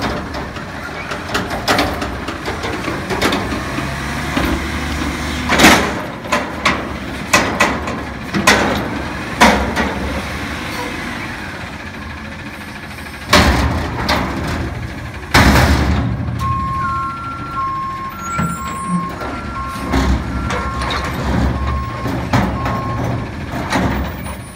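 2010 Autocar garbage truck with a McNeilus front-loader body running its engine to work the hydraulic arms as it lifts a commercial dumpster over the cab and empties it, with several loud bangs of the dumpster and its lids. From about 16 seconds in, the truck's unusual backup alarm beeps repeatedly, alternating between two pitches.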